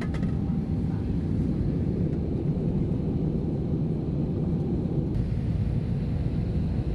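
Jet airliner cabin noise in cruise flight: a steady low rumble of engine and airflow noise heard from a passenger seat.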